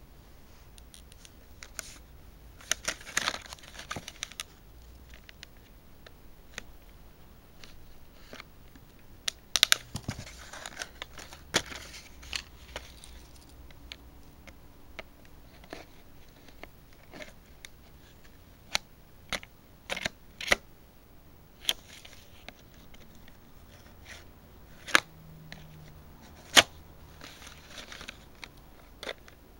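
Clear plastic blister pack of a die-cast model car being handled and worked open by hand. Spells of crinkling plastic come a few seconds in, around ten seconds in and near the end, with sharp clicks and snaps of the stiff plastic in between; the loudest snaps come near the end.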